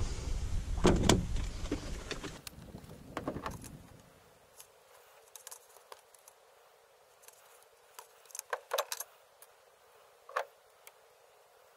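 Wire stripper/crimper and solar panel wire leads being handled: a knock and rustling in the first few seconds, then scattered small metallic clicks and snips, with a quick cluster near the end.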